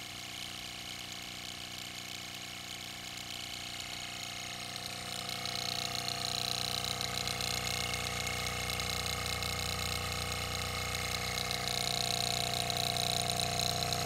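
Homemade Adams-style linear motor driving a thermal lag engine's piston through a rod, running as a heat pump with a steady hum. It grows louder about five seconds in.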